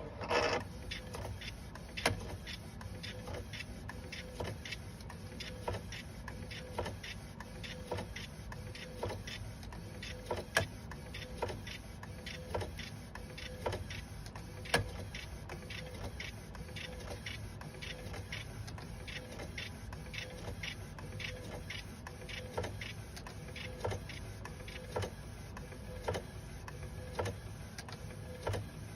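FL200h half-size food printer running a print, its mechanism making sharp clicks about twice a second over a steady low hum. This is the abnormal noise that goes with jagged printed lines, a fault that maintenance can fix.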